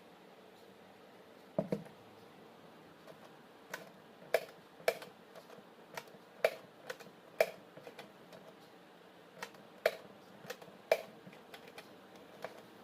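A series of irregular sharp clicks and taps, about a dozen spread unevenly, with a duller double knock just under two seconds in.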